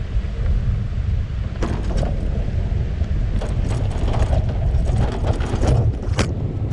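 Wind rumbling on the microphone as a bicycle rolls over a rough sand-and-dirt track, with the wire handlebar basket and camera mount rattling and clacking over the bumps, thickest from about three and a half seconds in. A sharper knock near the end comes as the basket-mounted camera works loose and tips down.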